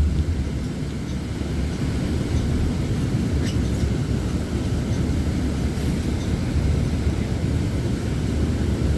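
Steady low drone of a Nova Bus LFS city bus in motion, its engine and road noise heard from inside the cabin, with a few faint rattles about three and a half seconds in.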